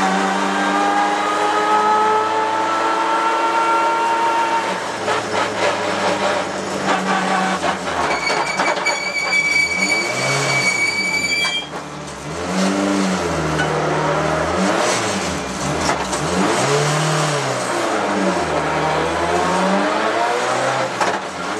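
Race car engine running hard at high revs. Its pitch climbs over the first few seconds, a steady high whine cuts off sharply about halfway through, and then the pitch rises and falls again and again.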